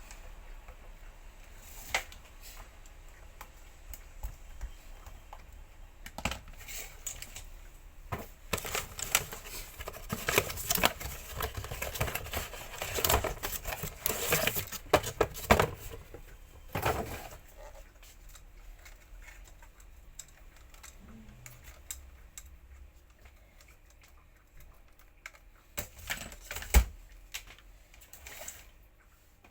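Light clicks, taps and clatter of parts being handled and fitted by hand. A dense run of rapid clicks comes in the middle, and a single sharp knock near the end.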